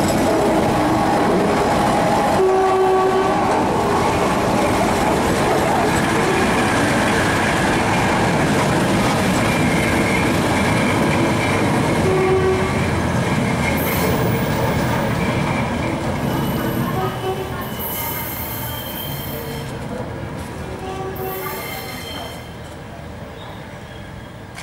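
Batara Kresna diesel railbus passing on a sharply curved track, its engine running and its wheels clacking over the rail joints. In the second half, high-pitched wheel squeal comes and goes from the curve, and the whole sound fades steadily as the railbus pulls away.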